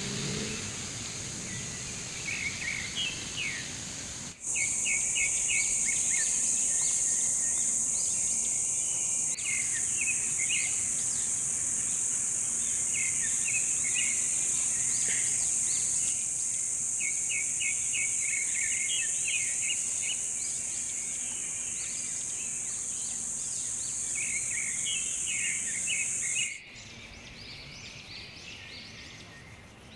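Outdoor ambience of birds chirping again and again, with a loud, steady, high-pitched insect drone that starts suddenly about four seconds in and cuts off suddenly near the end.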